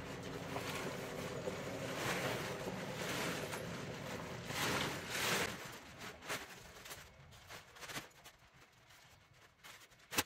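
Blue polyethylene tarp rustling and crackling as it is shaken, gathered and folded by hand, loudest in the first half and then in smaller scattered crinkles, with a single sharp click near the end.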